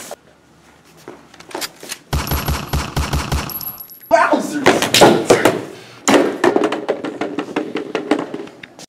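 Machine-gun sound effects in a staged shootout: a rapid, even burst of shots about two seconds in, about five a second, then denser, louder gunfire over the second half.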